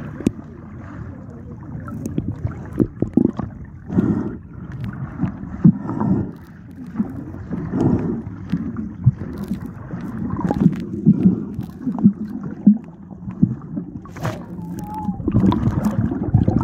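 Muffled sloshing and swishing of seawater around a phone microphone held underwater, in irregular surges with a few knocks.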